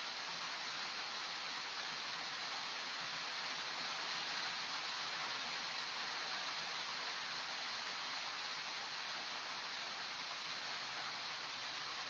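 Steady rain falling, an even hiss with no breaks or individual drops standing out.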